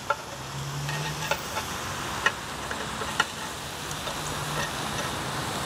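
Pork chops sizzling in a hot cast iron grill pan, with a few sharp clicks of metal tongs against the pan.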